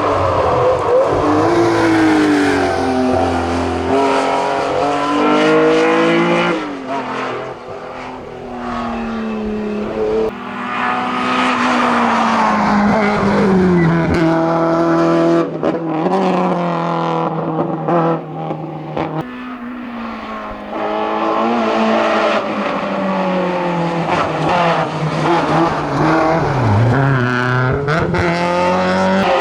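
Hillclimb race car engine revving hard through the gears, its pitch climbing and then dropping sharply at each change or lift. It fades down twice, about a quarter and two thirds of the way through, then comes back up loud.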